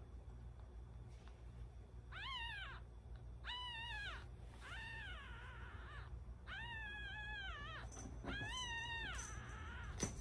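Ten-day-old black kitten mewing repeatedly: about six thin, high cries, each rising and then falling in pitch, a second or so apart.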